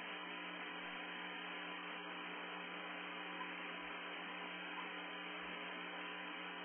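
Steady electrical mains-type hum under a constant hiss, unchanging throughout: the noise floor of the recording, with no other sound.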